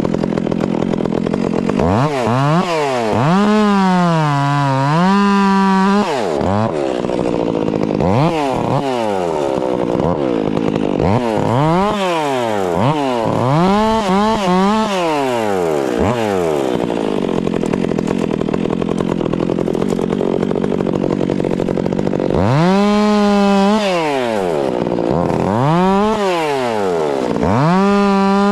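Ported two-stroke chainsaw being throttled up again and again to a high whine while cutting wood, its pitch sagging as the chain bites and rising as it frees. Between cuts it drops back to a lower, rougher running.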